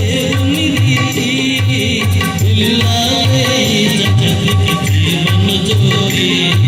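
Loud music with a steady, rhythmic drum beat, tabla-like percussion and a busy high shimmer, played through a sound system.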